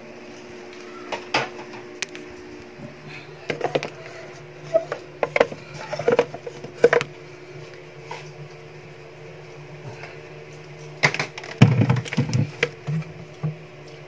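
Scattered clicks and knocks of parts and panels being handled inside an open refrigerator cabinet, with a cluster of louder knocks and low thuds near the end, over a steady low hum.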